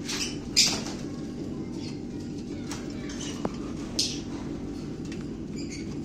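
Lovebirds giving short, high-pitched chirps: a handful of scattered calls, the loudest about half a second in, over a steady low background hum.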